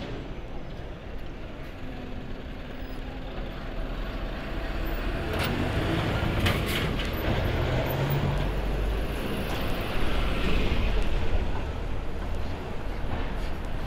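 Road traffic at a busy city junction: red double-decker buses and a fire engine pulling past with a steady engine rumble. The rumble grows louder from about four seconds in and is loudest around ten seconds, with a few sharp clicks between five and seven seconds in.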